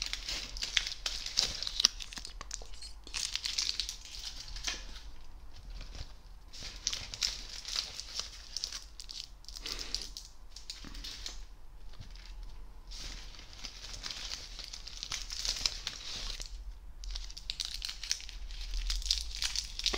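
Close-up crinkling and rustling of a red KitKat paper bag and small wrapped sweets being handled, in irregular bursts with a few brief pauses.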